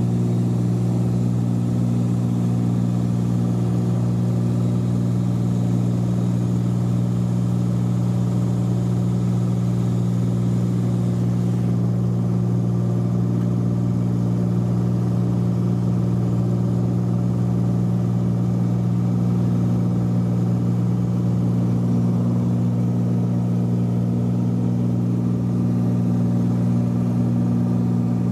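Cessna 182's piston engine and propeller running steadily at a constant pitch, a loud unbroken drone.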